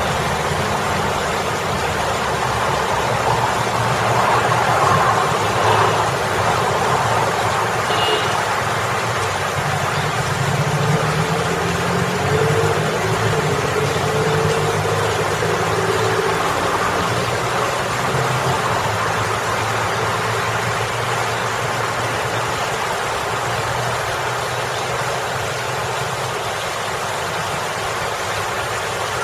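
Steady splashing of a landscape water feature, water falling over a boulder into a pool, with road traffic passing behind it. Car and truck engines hum and come and go, one passing vehicle most prominent about halfway through.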